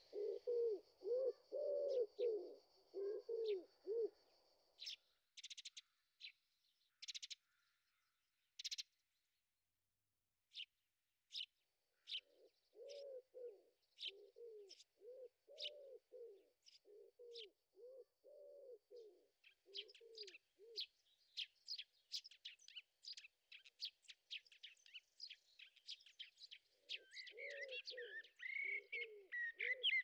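Faint birdsong: a pigeon cooing in phrases of low, evenly repeated notes, and small songbirds chirping higher over it, busier in the last third.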